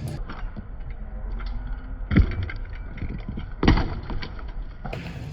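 Steady low wind and road rumble from riding a BMX bike, with two hard thumps about two and three and a half seconds in.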